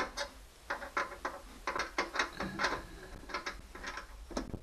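Hand ratchet wrench clicking in short, irregular strokes as a screw is turned clockwise.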